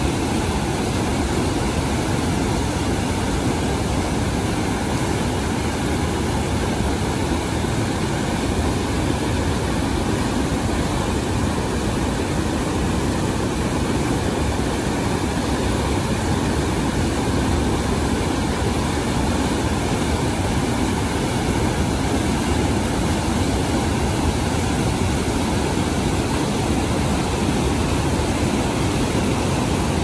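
Brown floodwater churning through wide river rapids over rocks: a steady, loud rushing that is heaviest in the low range.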